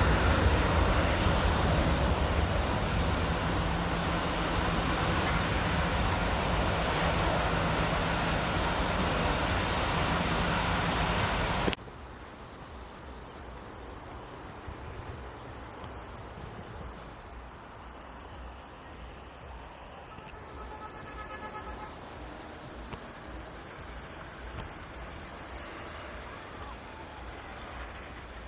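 Aircraft engine noise: a loud, steady rush with a low hum that cuts off abruptly about twelve seconds in. After that, crickets chirp in a steady, rhythmic pulse, and the same chirping can be heard faintly under the aircraft early on.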